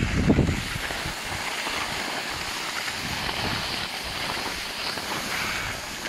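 Skis sliding and scraping over groomed snow as the skier moves downhill, a steady hiss, with wind buffeting the microphone, strongest in the first half second.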